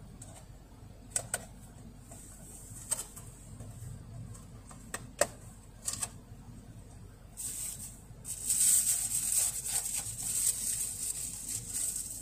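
Clear plastic food pack being handled and opened. There are a few sharp clicks and snaps in the first six seconds, then a longer run of crinkling and crackling plastic from about seven and a half seconds in.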